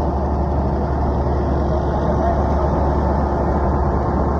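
A heavy engine running steadily with a low, constant drone, typical of road-repair machinery at work.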